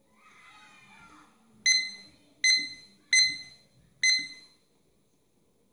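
Digital kitchen countdown timer's beeper sounding four sharp, high-pitched beeps about three-quarters of a second apart, each dying away quickly.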